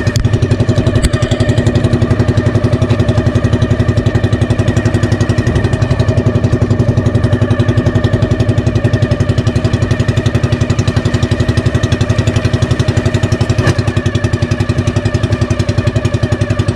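Engine of an outrigger bangka running steadily under way, a fast even beat that holds the same speed throughout.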